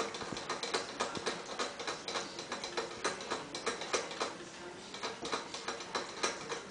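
Shih Tzu puppies scratching and digging in their crate, their claws making a quick, irregular run of clicks and scratches, several a second.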